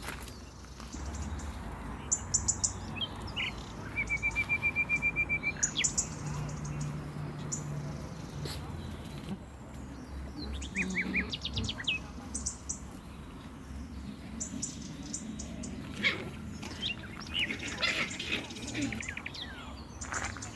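Several small songbirds chirping and singing, with high quick trills and, about four seconds in, a rapid even run of a dozen or so notes.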